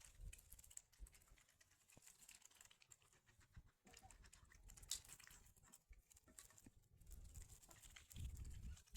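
Faint, rapid, irregular tapping of ducklings' and chickens' beaks pecking at feed, with one sharper tap about five seconds in.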